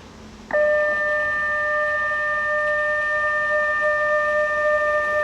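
Alertus HPSA-1200 electronic flood warning siren sounding its alert blast for a test. It is a loud, steady tone that starts abruptly about half a second in and holds level without rising or falling.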